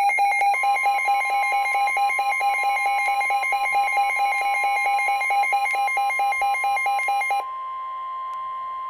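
NOAA Weather Radio warning alarm: a rapid electronic beeping at about eight beeps a second, joined about half a second in by the steady 1050 Hz warning alarm tone. The beeping stops about seven and a half seconds in and the steady tone carries on alone. The tone signals that a new severe weather warning is about to be read.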